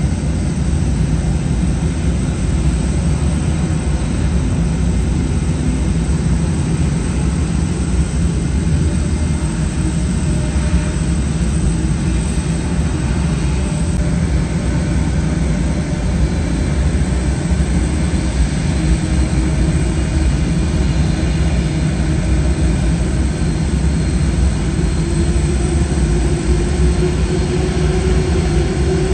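Airbus A380-800 jet engines running steadily at taxi idle, a deep rumble with a steady whine over it; one tone rises slightly near the end.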